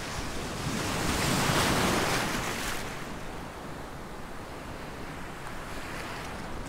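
Sea waves rolling in and breaking close by. One wave's rushing wash swells about a second in, peaks, and fades by about three seconds, leaving a steadier hiss of moving water.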